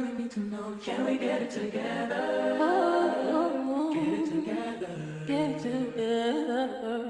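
Background music: a song carried by a singing voice, with the melody moving up and down.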